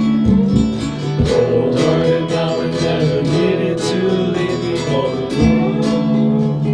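Lo-fi rock instrumental: guitar playing over drums with a steady beat.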